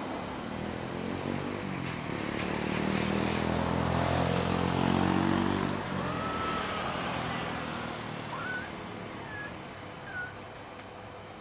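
Airbus A320 jet engines passing close by on landing approach: a broad engine noise with a low hum that swells to its loudest about five seconds in, slides slightly down in pitch, then fades.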